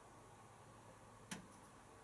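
Near silence from a Zanussi ZWC1300 compact washing machine paused between drum turns during its rinse, broken by one sharp click about a second and a half in.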